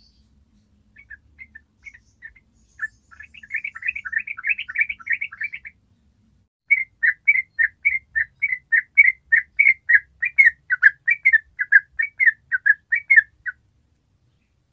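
Yellow-vented bulbul singing: a few scattered notes, then a rapid run of chattering notes, and after a short pause a long, fast series of loud bubbling notes at about four a second, which stops about a second before the end.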